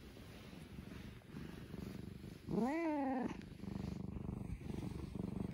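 Tabby cat purring steadily close to the microphone, with one short meow, rising then falling in pitch, about two and a half seconds in.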